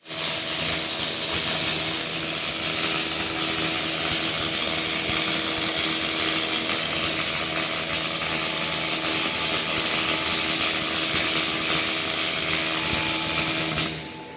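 Twin-wire MIG welding arc (Lincoln Electric Hyperfill) burning steadily with a loud hiss and crackle, a faint steady hum under it; the arc cuts off suddenly near the end.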